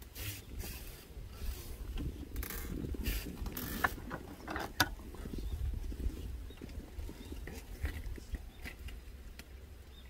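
A run of creaking, ratchet-like clicks and short squeaks, thickest in the first half, over a steady low rumble.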